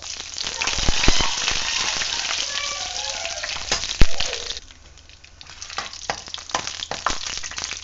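Fresh curry leaves hitting hot oil in a pan with fennel seeds and whole spices, crackling and sizzling loudly for about four and a half seconds. A sharp clack of a steel ladle striking the pan comes about four seconds in, then quieter sizzling with scattered crackles and ladle scrapes as the leaves are stirred.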